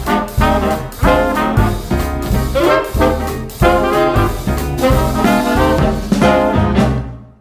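Upbeat swing-style background music with brass, in a lively rhythm, fading out near the end.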